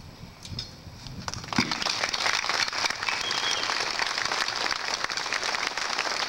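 Audience applause that breaks out about a second and a half in and continues steadily.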